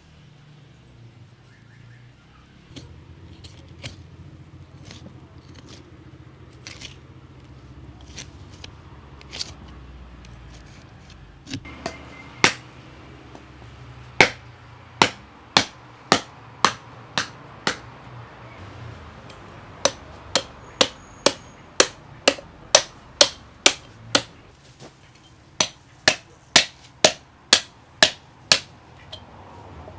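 Cleaver chopping into a skinned cow's head on a wooden stump: sharp chops in quick runs of about two or three a second, starting about halfway through. Before that there are only faint scattered clicks of a knife working at the head.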